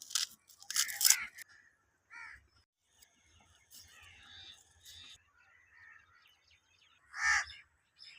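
A few short, harsh bird calls, with faint chirping between them.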